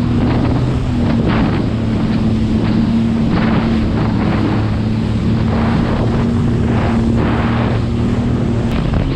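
Sea-Doo jet ski's engine running at speed with a steady drone, its pitch stepping up slightly about a second in. Wind buffets the microphone, and water rushes and sprays in repeated surges as the hull crosses a boat's wake.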